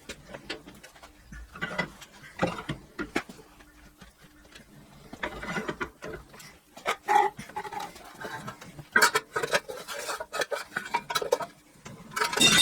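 Irregular knocks, clanks and scrapes of a stainless steel sheet being worked and bent into a bracket. Some strikes ring briefly, and a cluster of sharp clanks near the end is the loudest.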